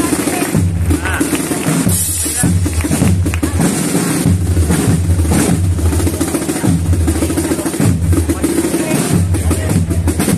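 Processional band music with drums: a steady march carried by bass drum beats and drum rolls.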